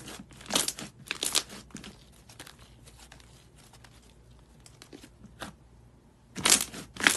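Thick yellow slime being pressed and stretched by hand, giving short crackly, squelching bursts. Several come in the first two seconds, then it goes quieter with a few faint clicks, and two loud bursts come near the end.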